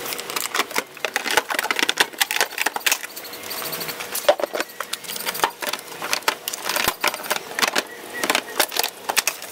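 Irregular clicks, knocks and rattles of a motorcycle's hard pannier case being handled and fitted onto its luggage rack.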